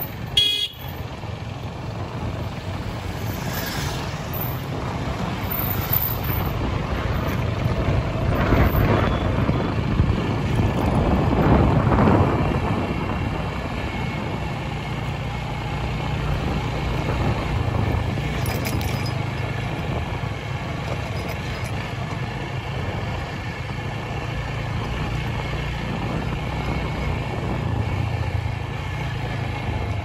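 A motor vehicle's steady low rumble, swelling louder from about eight to twelve seconds in and then settling back, with a sharp knock right at the start.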